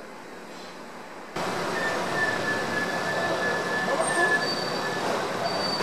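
Quiet room hum, then city street noise cutting in abruptly about a second and a half in: traffic on a wet road, with a steady high squeal held for about three seconds, like a vehicle's brakes or wheels.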